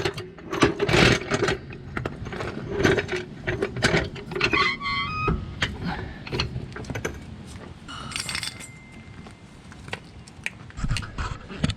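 Irregular metal clinks and knocks as a floor jack is worked under the vehicle's frame, with a brief squeak about five seconds in.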